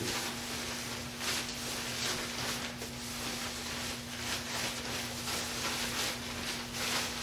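Packing material rustling and crinkling in irregular bursts as it is unwrapped from a guitar, over a steady low hum.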